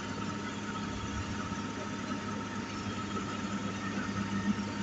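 Heavy diesel engine running steadily with a low hum.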